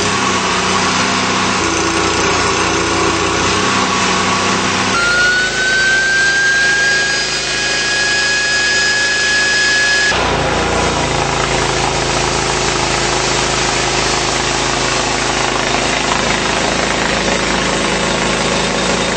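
Engine on a drain-jetter truck running steadily. About five seconds in a high whine starts, rises slightly in pitch, holds, then cuts off suddenly about five seconds later.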